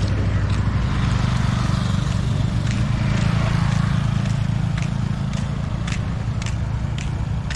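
Road traffic on a bridge road: a small truck and motorcycles running, giving a steady low engine rumble. From a few seconds in, light footsteps tick about twice a second.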